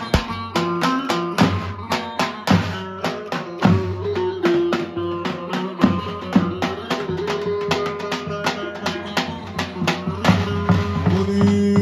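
Folk dance music played on davul bass drums: a steady, driving beat of about four strikes a second under a melody of long held notes.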